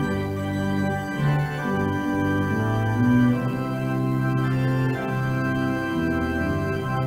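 Organ playing a postlude: held chords with a moving bass line, the notes changing every half second to a second.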